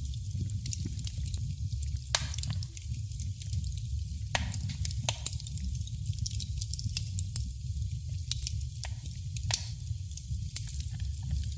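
Wood fire crackling in a fireplace: a steady low rumble and hiss with frequent small crackles and several louder, sharp pops.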